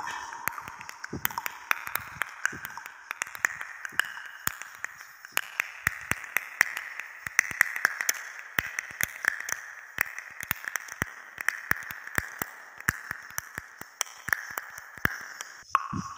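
Colored pencil tip tapping dots onto paper: quick, irregular taps, several a second, over a faint high wavering tone.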